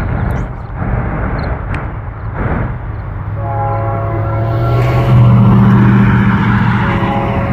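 Approaching Union Pacific GE C44AC diesel locomotive, a low rumble at first, then its multi-chime air horn sounding one long held blast that begins about three seconds in and is still going at the end.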